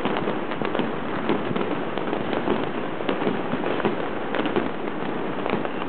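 Fireworks and firecrackers going off all over a city at once: a continuous dense crackle of many overlapping pops and bangs, none much louder than the rest.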